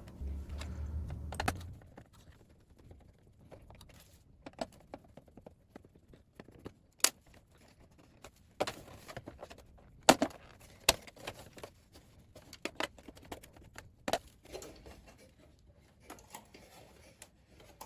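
Scattered sharp clicks, taps and light rattles of small screws and a screwdriver being handled while a few screws are taken out to free the power button from a keyboard's plastic housing, with a brief low hum at the start.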